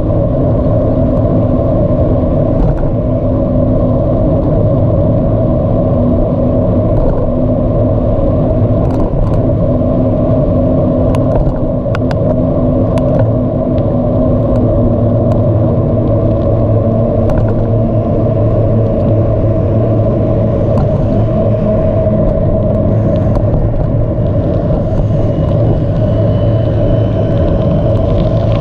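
Steady rumble of a bicycle in motion, tyre noise mixed with wind, with a low steady hum under it and a few sharp ticks around the middle.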